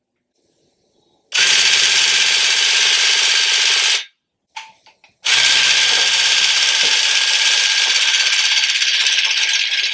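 Electric tufting gun set to cut pile, running as it punches and cuts yarn through the backing cloth, in two runs of a few seconds with a short stop between.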